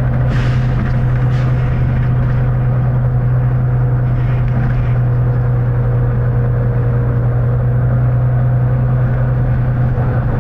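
Volvo B9TL bus's engine running at a steady pace with a low, even drone and a held whine above it. A few short faint hisses of air come in the first half.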